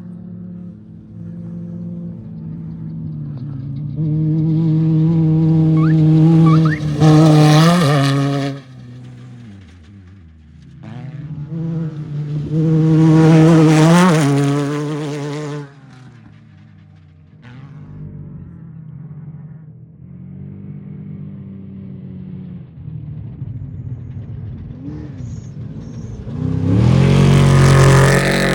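Off-road race vehicles passing at speed, three in turn, each engine swelling loud as it nears and its pitch falling away as it goes by, the third near the end. A quieter engine drone runs between the passes.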